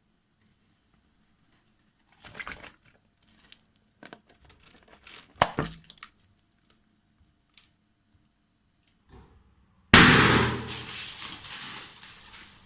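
Rubbery handling noises and a sharp snap, then a balloon bursts with a sudden loud bang about ten seconds in, followed by a rushing noise that fades away over a couple of seconds.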